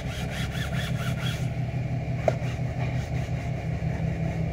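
Rapid back-and-forth scrubbing of a car's fabric headliner with a cloth, about six strokes a second for the first second and a half, over a steady low hum. A single short click a little past two seconds in.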